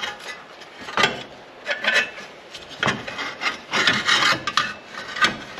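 A Jeep Wrangler TJ's plastic fan shroud and engine-driven fan with its fan clutch being worked out of the engine bay, scraping and rubbing against the radiator. There are several sharp knocks along the way and a longer scrape near the middle.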